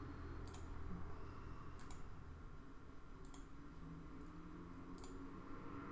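Four sparse, short clicks of a computer mouse, each over a second apart, over quiet room tone.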